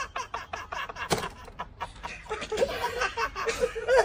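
People laughing in quick repeated bursts, with a single sharp knock about a second in.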